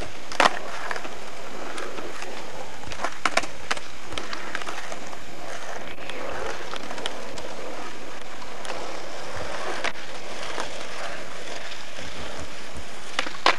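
Skateboard wheels rolling on asphalt, with a few sharp clacks of the board hitting the pavement: one shortly after the start, two around three seconds in, one near ten seconds and a cluster near the end.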